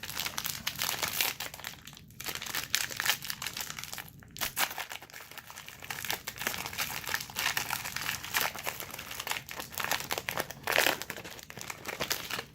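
Plastic trading-card pack wrapper crinkling as it is handled and opened, with a couple of brief pauses.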